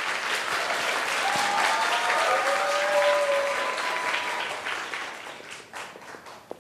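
Audience applauding in a hall, starting up quickly and dying away over the last second or so.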